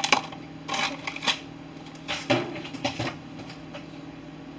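Irregular light clicks and scrapes of a fork scooping butter, over a low steady hum.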